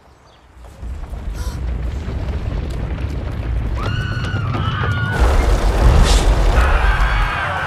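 Deep, rumbling thunder of a herd of rhinos stampeding. It swells up about a second in and keeps growing louder. People scream over it around four seconds in, and another high cry comes near the end.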